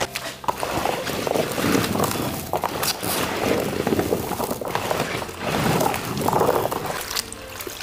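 Cubes of white radish being tossed by hand with salt in a plastic basin, clattering and rustling against each other and the basin's sides. This is the salting stage that draws water out of the radish.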